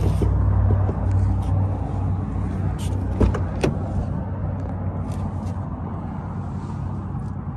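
A car door being opened, with two sharp latch clicks about three seconds in, over a steady low vehicle hum.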